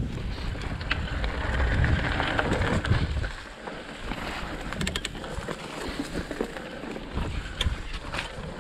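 Mountain bike riding down a dirt forest trail: wind buffeting the camera microphone, loudest in the first three seconds, over tyre noise and the bike rattling across the ground, with scattered sharp clicks and knocks.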